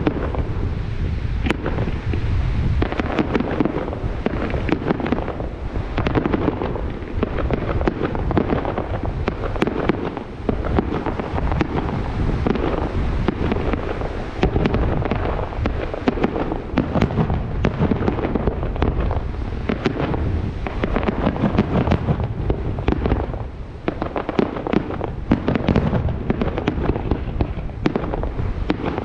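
Fireworks display: a dense, continuous barrage of shell bursts, many bangs overlapping one another, easing briefly about three-quarters of the way through.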